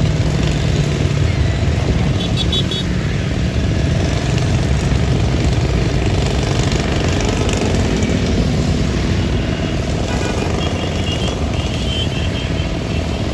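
Steady, close road traffic, motorbike and car engines passing in a continuous low hum. Short, high repeated beeps come through about two and a half seconds in and again near the end.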